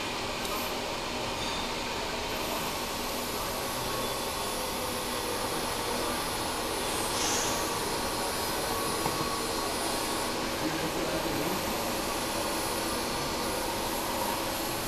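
Steady machine noise of a workshop, an even rushing hum that does not change, with a brief higher hiss about seven seconds in.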